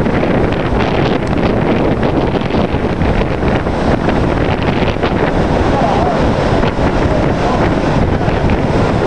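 Strong wind buffeting the microphone over the steady rush of breaking surf.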